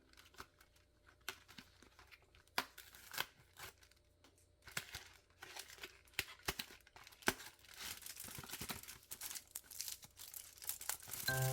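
Close handling sounds: crinkling and tearing, like packaging being opened, with scattered light clicks and knocks and a denser rustle in the last few seconds.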